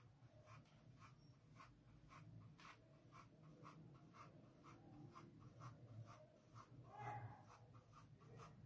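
Faint marker-on-paper writing: a felt-tip marker drawing a row of small circles, each loop a short scratchy stroke, about three a second.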